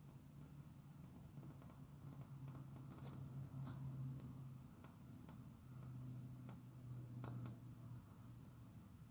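Near silence: faint, scattered light clicks over a low hum that stops and starts.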